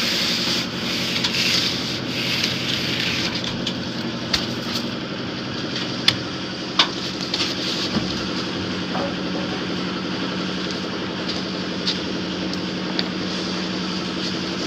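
A motor engine runs steadily at an even idle throughout. A scraping hiss, fitting a straightedge drawn over wet plaster, fills the first few seconds, and a few sharp clicks come later.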